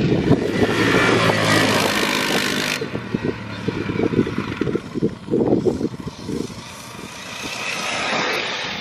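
Quad ATV engine running as it rides across the field, heard at a distance through gusty wind noise on the microphone. The wind hiss is loudest over the first three seconds.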